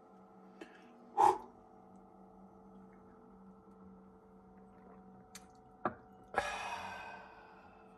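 Tableware on a table: a sharp knock about a second in, then a few small clicks and a clink that rings out and fades over about a second, over a steady faint hum.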